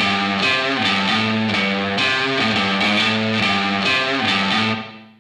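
Background music led by guitar, fading out near the end.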